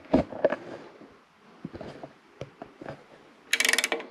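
Hand socket ratchet clicking rapidly for about half a second near the end as it turns a bolt on a chrome license plate bracket, with scattered light clicks and knocks before it.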